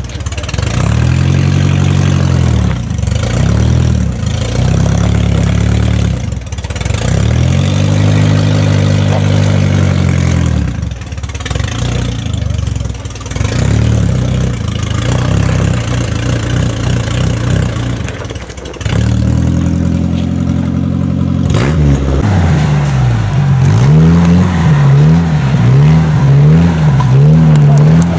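Off-road 4x4's engine revving hard again and again, each rev climbing and falling over a second or two. In the last few seconds the throttle is worked in quick short surges.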